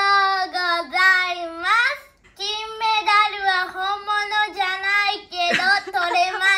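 A young girl's voice delivering her words in a drawn-out, sing-song way close to singing, with long held notes. There are two phrases with a short break about two seconds in.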